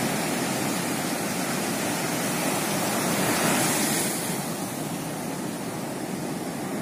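Sea surf breaking and washing up the beach, a steady rush that swells briefly about three to four seconds in.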